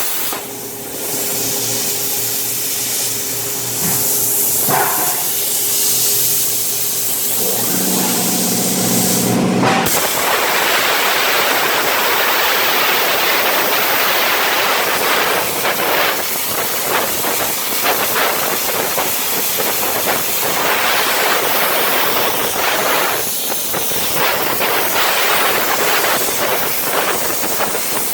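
CNC plasma cutter cutting, a loud steady hiss of the plasma arc and air jet. For about the first ten seconds a steady hum of several tones sits under the hiss, then stops as the hiss grows louder and rougher.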